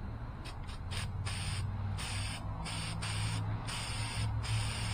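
Aerosol can of black spray paint hissing in a series of short bursts with brief pauses, over a steady low hum.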